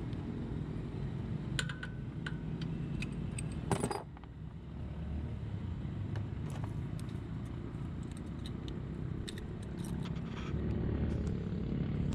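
Small metal hand tools clicking and clinking on the Yamaha Mio i 125 scooter engine's cylinder head during valve clearance adjustment, with one louder clank about four seconds in. A steady low rumble of road traffic runs underneath.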